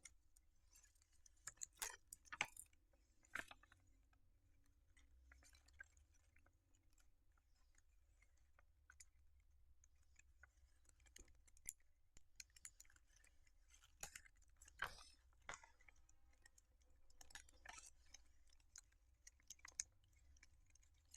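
Faint, scattered crinkles and clicks of sticky tape being handled and pressed onto a paper squishy, a few sharper clicks among them.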